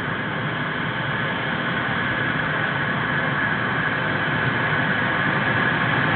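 Air ambulance helicopter running on the ground: a steady rushing engine and rotor noise that grows gradually louder.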